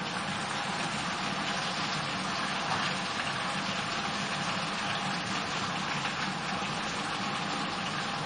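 Sliced pumpkin and potato frying in mustard oil in a pan, a steady, even sizzle.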